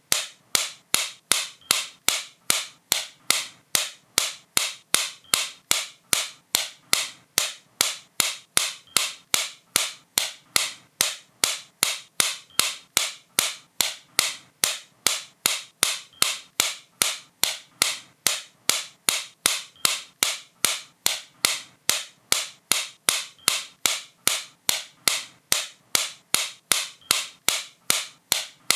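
Sharp, bright clicks repeated at a steady, even rate of a little over two a second.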